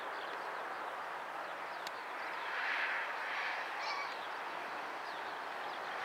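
Steady outdoor background hiss with many faint, short bird chirps scattered through it, and a single brief click about two seconds in.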